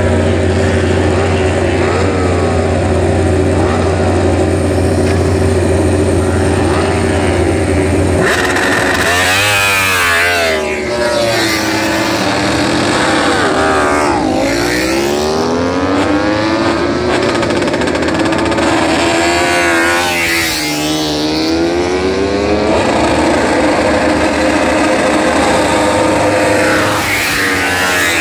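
MotoGP four-cylinder race motorcycles doing practice starts: an engine held at steady high revs, then about eight seconds in, bikes revving hard and launching away one after another, their engine notes repeatedly rising and falling.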